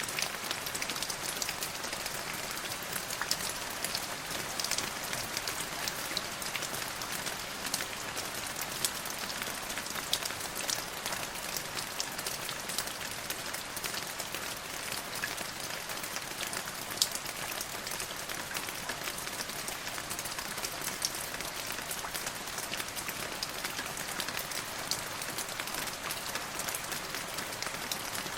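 Steady rain falling on a hard surface, an even hiss dotted with many small sharp drop impacts.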